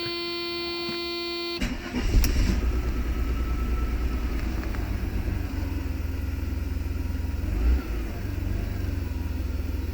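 Mercedes 300E's 3.0-litre straight-six starting from the push button: a steady hum for about a second and a half, then the engine cranks, catches and settles into a steady idle.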